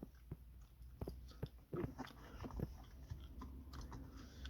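Faint handling noises: scattered light clicks, taps and crackles as a small pocket mat is pushed and fitted into a car's storage pocket.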